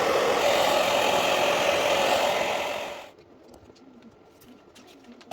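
Heat gun blowing steadily, as used to shrink wrap over a rebuilt battery pack, switched off abruptly about three seconds in; a few small handling clicks follow.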